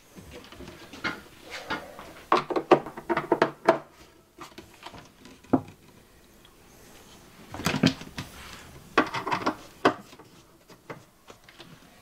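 Wooden cabinet doors on European-style hinges being handled and adjusted with a screwdriver: clusters of clicks, taps and knocks, the busiest stretch about one to four seconds in, then single knocks later on.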